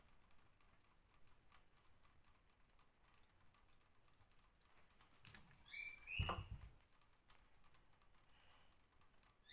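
Near silence: room tone with faint light clicks, and about six seconds in a brief faint high tone with a soft thump.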